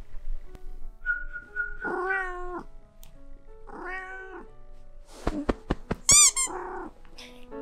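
Cats meowing over soft background music: two drawn-out meows about two and four seconds in, the second from a tabby. A quick run of sharp clicks and a short, loud, high-pitched warbling sound follow near the end.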